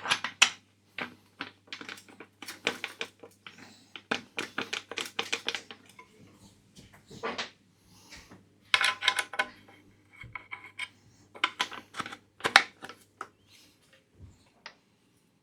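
Irregular sharp metallic clicks and clinks, in quick clusters, as a seat post and saddle are fitted to a steel bicycle frame and parts and tools knock together. A faint low hum runs underneath and stops near the end.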